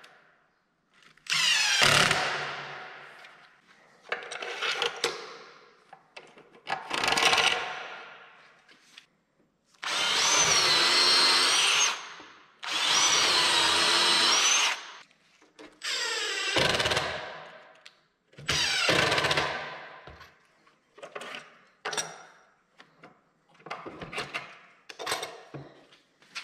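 Cordless drills running in a series of short bursts as holes are bored through a drilling jig into a particle-board cabinet panel. Each burst starts sharply and fades, with two longer steady runs near the middle that carry a high whine.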